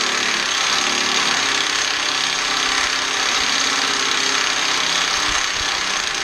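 Power tool running steadily under load, with a motor hum and a thin high whine, while a part is being worked loose.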